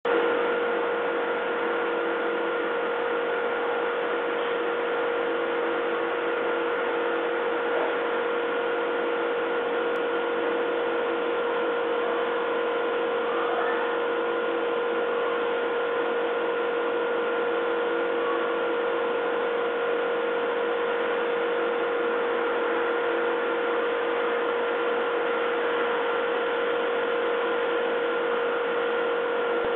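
A steady hum with a few fixed tones over an even hiss. No barks or other dog sounds stand out.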